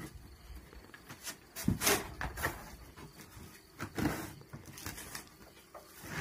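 A rope being pulled and dragged across the lids of wooden bee swarm-trap boxes: rustling and scraping, with louder scuffs a little under 2 s in and again around 4 s.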